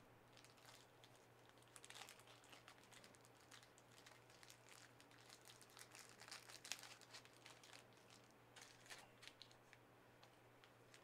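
Faint crinkling and clicking of trading-card pack wrappers and cards being handled: irregular rustles and small clicks, busiest about two seconds in and again around the middle, over a steady low electrical hum.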